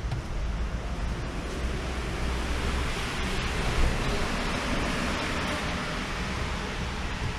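Car-wash brush scrubbing the rain-wet paint of a car body: a steady hiss of bristles on the panel that swells toward the middle.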